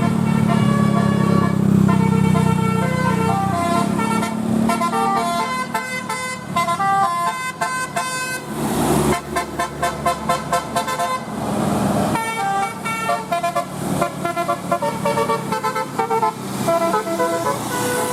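Bus telolet horn playing a tune: a quick run of short multi-tone horn notes jumping up and down in pitch, with two short noisy bursts about nine and twelve seconds in.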